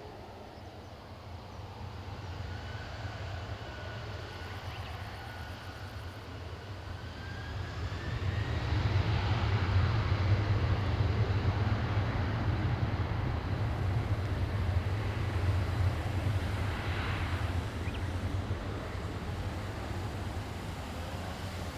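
Boeing 747 freighter's four jet engines passing close by. A thin engine whine rises in pitch as the noise builds, is loudest around the middle, then slowly fades.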